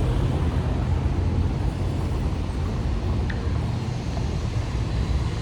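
Steady low rumble of a motor vehicle engine running close by, with street traffic noise.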